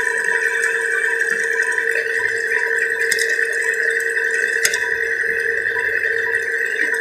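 Milling machine running at a steady pitch while its cutter slowly bores out a worn brake caliper guide at a small feed, the tool scraping the metal, with a couple of sharp ticks.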